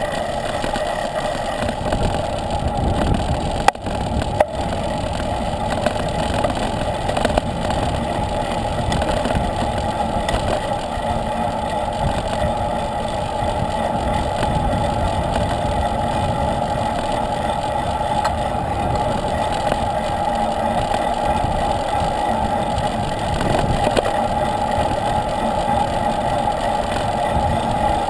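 Steady wind and road rumble picked up by a camera mounted on a moving road bike, with two sharp knocks about four seconds in.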